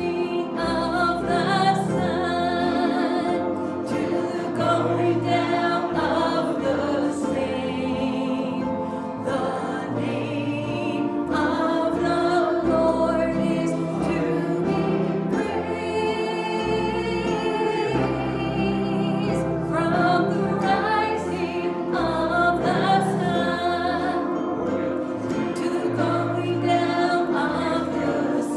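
A choir singing a slow piece with instrumental accompaniment, sustained bass notes moving beneath the voices.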